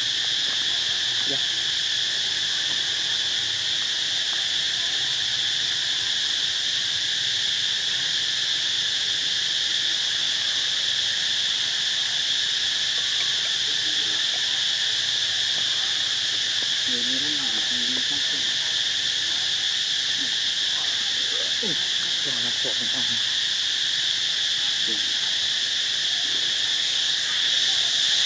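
A steady, high-pitched chorus of insects droning evenly.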